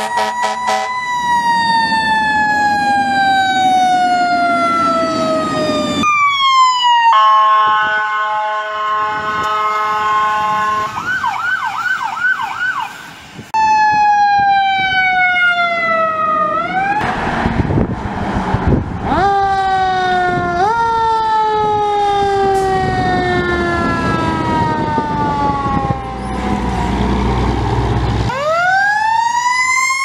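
Fire trucks responding with a mechanical Federal Q siren, which winds down in long falling wails, is kicked back up in pitch, and winds up again near the end. In between comes a stretch of steady air-horn blasts and a brief electronic siren yelp, and a passing truck's engine rumbles under the siren in the later part.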